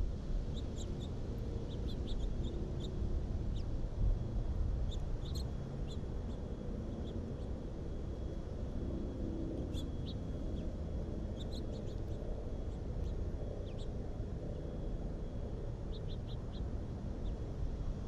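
Small songbirds at a feeder giving short, high chirps, scattered irregularly with a quick run of four near the end, over a steady low rumble.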